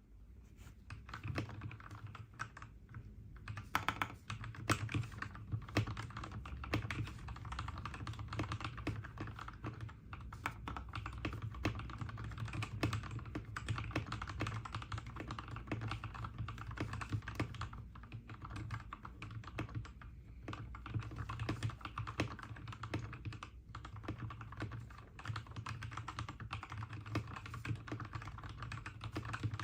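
Mechanical keyboard being typed on quickly and continuously, a dense unbroken run of keystrokes.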